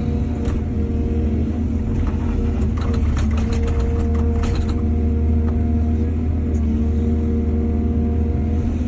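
Excavator's diesel engine running steadily under work, with a low hum, and a quick run of clattering knocks around the middle.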